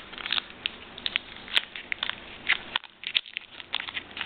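Foil Pokémon booster pack wrapper crinkling in the hands as it is worked open, in many small irregular crackles.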